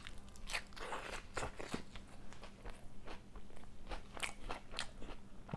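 Close-miked chewing: a person eating a mouthful of luchi with chicken kosha, with an irregular run of short, crunchy mouth and chewing sounds.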